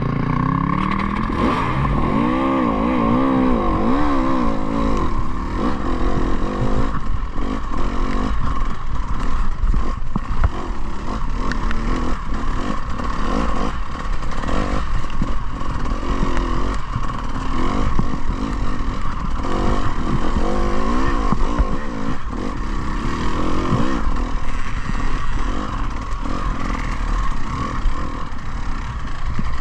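Enduro motorcycle being ridden: the engine's revs rise and fall in the first few seconds, then it runs on under heavy wind rush on the microphone, with frequent knocks and rattles from the bike over rough ground.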